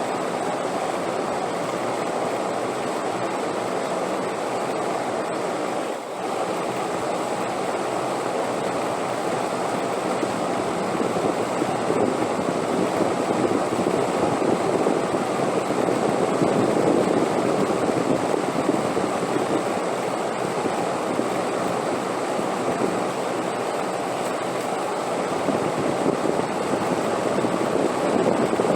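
Wind blowing as a steady rushing noise, swelling in gusts about halfway through and again near the end.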